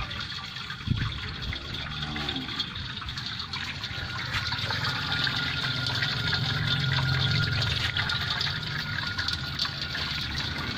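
Water pouring steadily from a pipe into a metal basin as a cow drinks from it.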